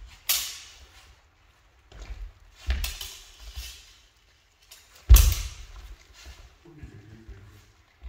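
Spadroon fencing in a sports hall: feet thumping on the wooden floor and steel blades clashing and scraping, in a few sudden bursts that echo in the hall. The loudest comes about five seconds in.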